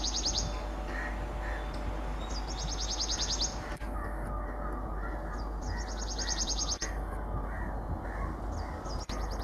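Birds calling: a high, fast rattling trill repeats three times, about every three seconds, among scattered chirps. Underneath runs a low steady hum from an approaching electric-locomotive-hauled passenger train.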